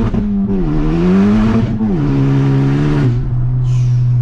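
Loud 2019 Honda Civic Type R (FK8) 2.0-litre turbocharged four-cylinder running through a catless downpipe with no exhaust behind it, heard from inside the cabin under hard acceleration. The engine note climbs, drops twice at upshifts about half a second and two seconds in, then holds steady until it cuts off suddenly at the end.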